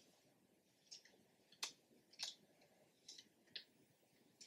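Faint clicks and crinkles of small white plastic phone accessories and their paper wrapping being handled in the fingers: about half a dozen short, sharp ticks, the crispest about a second and a half in and again near two and a quarter seconds.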